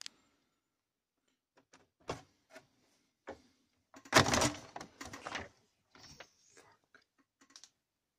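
Clicks and knocks of hard objects being handled, with a louder clatter about four seconds in that lasts over a second.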